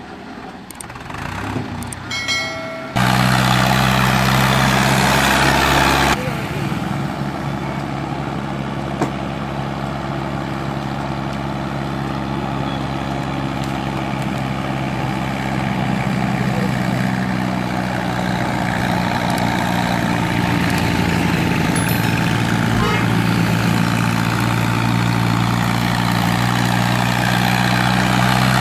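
Diesel tractor engines running steadily under heavy load, hauling fully loaded sugarcane trolleys past: a Hindustan 50 hp and a Mahindra Arjun 605. Short clicks and chimes come in the first few seconds, then the engine sound jumps up loud.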